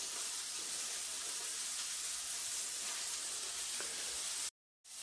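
Steady, even hiss with a couple of faint ticks, no frying involved. The sound drops out completely for a moment near the end.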